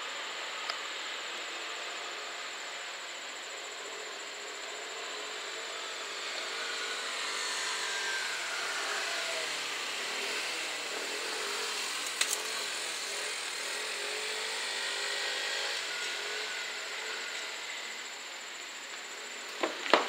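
Two-car JNR KiHa 40-series diesel railcar set (KiHa 40 and KiHa 47) pulling away from a station: the diesel engines and running gear swell as it accelerates, with a wavering whine rising and falling, then ease off as it recedes. A sharp click about twelve seconds in.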